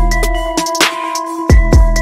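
Background electronic music: held synth tones over a deep bass, with a few sharp drum hits.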